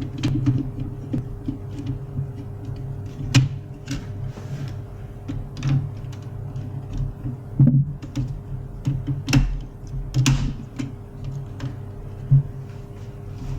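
Irregular hard clicks and knocks from handling or running an HP LaserJet 401 laser printer's mechanism, over a steady low hum.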